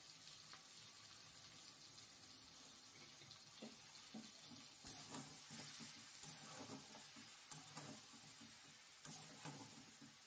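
Faint scraping and clinking of a steel spatula stirring cabbage and fish heads in a stainless steel kadai, over a soft sizzle.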